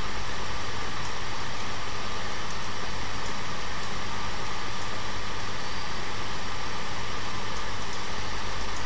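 Steady background hiss with a low hum underneath, unchanging throughout: the noise floor of a voice-over recording setup between spoken sentences.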